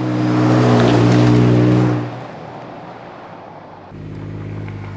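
2022 Toyota Tundra's twin-turbo V6 with a Magnaflow Overland cat-back exhaust driving past at low speed. The exhaust note swells to its loudest about a second in, drops slightly in pitch as the truck goes by, and falls away after about two seconds. A quieter engine note comes up again near the end.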